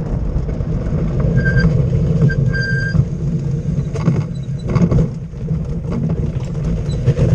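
Unpowered soapbox cart rolling along, heard from a camera mounted on it: a steady low rumble of wheels on the road and wind. Two brief high squeaks come a second or two in, and a few knocks as it rolls onto gravel.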